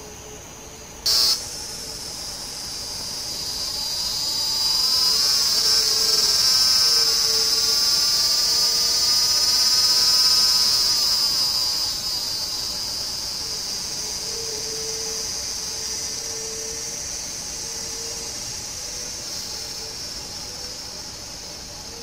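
A high, steady insect buzz swells over a few seconds, holds, then slowly fades. A sharp click sounds about a second in, and a faint low note repeats about once a second underneath.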